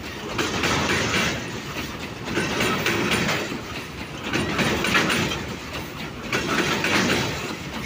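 Heavily loaded coal hopper wagons rolling slowly past, their wheel sets clattering over the rail joints. The sound swells about every two seconds as each wagon's bogies go by. The track underneath is loose and broken up, according to the filmer.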